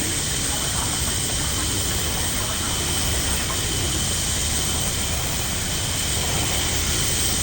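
A steady mechanical hum with hiss over it, running without a break or change in level.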